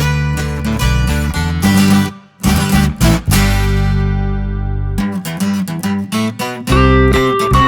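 Background music led by strummed acoustic guitar. There is a short break about two seconds in, then a chord held for a few seconds before the strumming picks up again.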